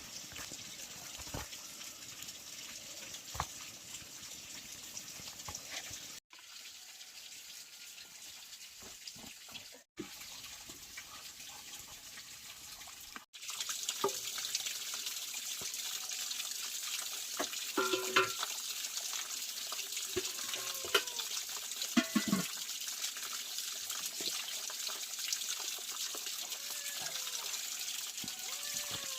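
Running water, a steady rush that becomes louder after a cut about 13 seconds in, with a few knocks and short, high calls over it.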